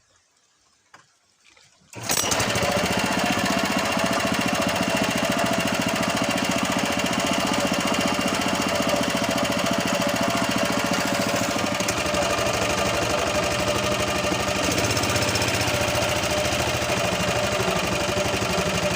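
Honda GX120 single-cylinder four-stroke engine of a longtail boat running hard and steady, pushing the boat against fast floodwater. It comes in suddenly about two seconds in, after near quiet with a few faint clicks.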